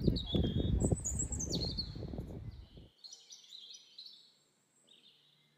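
Small birds chirping in short, high calls, several falling in pitch. For about the first three seconds a low rumbling noise lies under them, then it cuts off suddenly and only the birds remain, faint.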